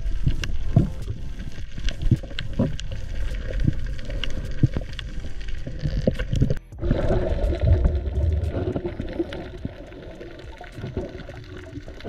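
Underwater ambience picked up by the camera: a low muffled rumble of moving water with scattered sharp clicks and crackles, broken briefly about six and a half seconds in.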